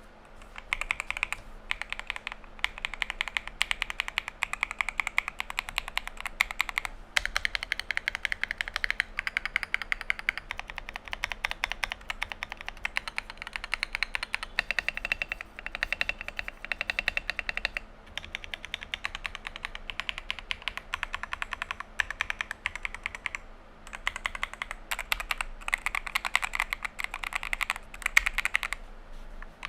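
Fast typing on a Novice 68 mechanical keyboard with Akko Cream Yellow Pro linear switches: a steady rapid clatter of keystrokes, pausing briefly a few times.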